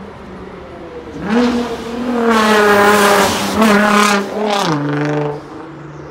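Tuned Nissan GT-R's twin-turbo V6 accelerating hard past at close range, its pitch climbing to a loud peak. It drops in a step near the end, as at a gear change, then fades as the car pulls away.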